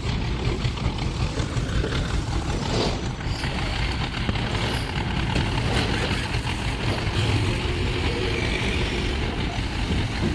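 Heavy diesel machinery engine running steadily, a continuous low rumble that holds its level throughout.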